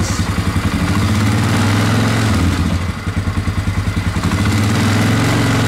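1999 Polaris Sportsman 500's single-cylinder four-stroke engine running in gear with a pulsing note; the engine speed dips about three seconds in and then picks back up.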